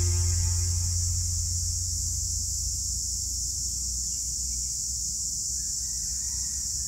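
Background music fades out within the first second, leaving a steady low hum and a steady high-pitched hiss.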